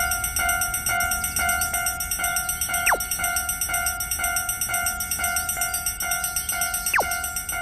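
Japanese level-crossing alarm bell ringing its steady "kan-kan" ding, about two strokes a second. A quick falling whistle-like sweep cuts across it twice, about 3 seconds and 7 seconds in.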